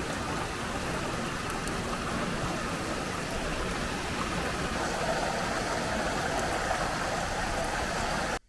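Steady rushing noise that cuts off suddenly near the end.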